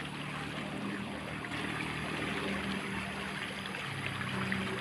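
Rain-swollen small stream rushing fast along a ditch, with a steady motorcycle engine humming from about a second and a half in.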